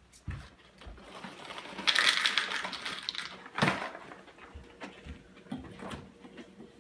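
A clattering stream of many small hard pieces, like dry food or small items poured or shaken in a container, lasting about a second and a half, followed by one sharp knock and a few light handling clicks.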